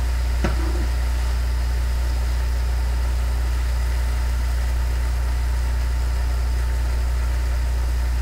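A steady low hum, with one short click about half a second in.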